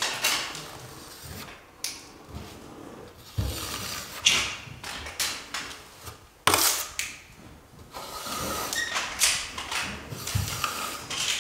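Curved drywall trowel scraping wet joint compound along a butt joint on a plasterboard ceiling: a series of uneven scraping strokes with small clacks, the loudest about six and a half seconds in.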